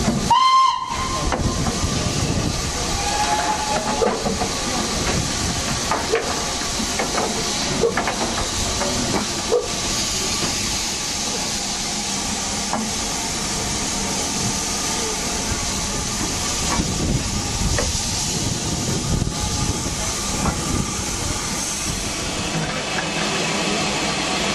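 LNER K4 steam locomotive 61994 The Great Marquess gives a brief whistle about half a second in, then steam hisses steadily from the engine as it moves off, with scattered knocks.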